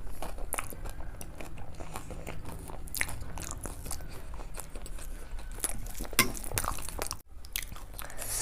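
Close-miked chewing and biting of fried eggplant slices (baigan bhaja), with irregular wet crunches and mouth clicks, and a momentary break about seven seconds in.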